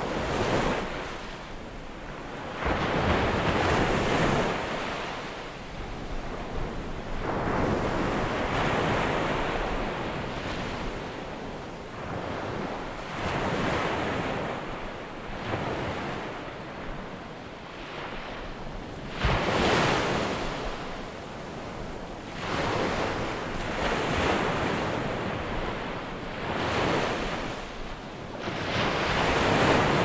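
Ocean surf: waves washing in and breaking as a continuous rush of water noise that swells and falls back about every four to five seconds.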